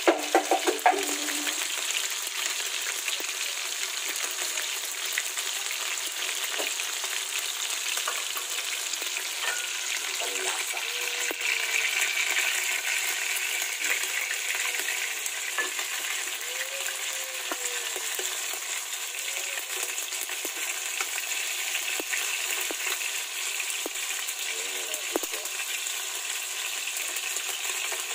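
Tuna steaks sizzling steadily in hot oil in a non-stick frying pan, with a quick run of sharp clicks in the first second and a few faint knocks as a spatula moves the pieces.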